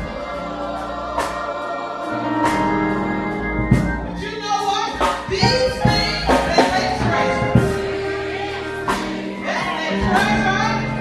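Gospel music: a choir singing over instrumental accompaniment, with sharp drum hits through it.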